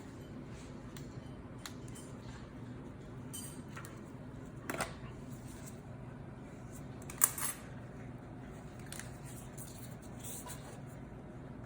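Small clicks and taps of hands and tools working inside an opened laptop, with two sharper, louder handling sounds about five and seven seconds in, over a low steady hum.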